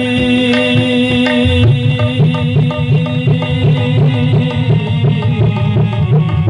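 Instrumental interlude of a Hindi devotional song: held melodic notes over a regular hand-drum rhythm, with the low drum part growing busier about two seconds in.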